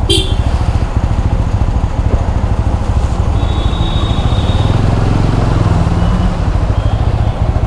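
TVS Apache RTR 200 4V's single-cylinder engine running steadily, its exhaust beat a fast even pulse.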